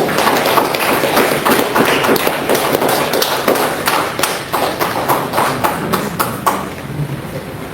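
A congregation applauding: dense, irregular clapping that thins out and fades about six and a half seconds in.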